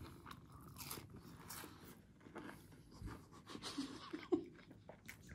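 Faint chewing and breathing of a person eating a breaded fried chicken cutlet, with scattered light clicks.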